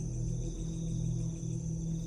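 Background music: a steady ambient drone with low held tones.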